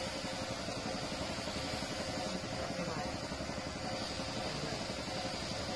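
Gravity-feed spray gun hissing steadily as it sprays white duco lacquer, over a steady mechanical drone.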